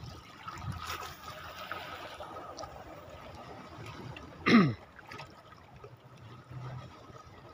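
Seawater lapping and trickling among shoreline rocks. About four and a half seconds in, a short, louder sound slides quickly down in pitch.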